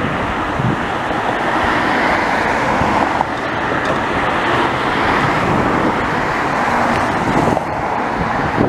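Jet airliner engines, a loud steady rush of noise that holds evenly throughout, from an Airbus passing close by.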